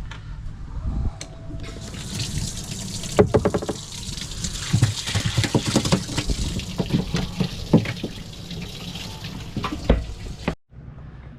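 Water running and splashing, with many small sharp splashes or knocks over a steady low hum; it stops abruptly near the end.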